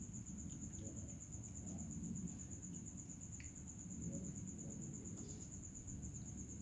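A young tabby cat eating dry food from a plastic lid, with a few faint crunching clicks as it chews, over a steady high pulsing trill.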